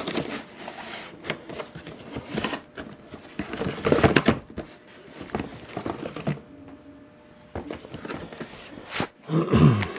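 Packaging being handled while a camcorder is unpacked: irregular rustling, crinkling and small clicks, busiest about four seconds in and again near the end.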